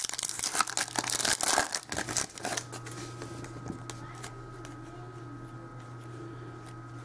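Trading card pack wrapper being torn open and crinkled by hand for the first two seconds or so, then quieter handling of the cards.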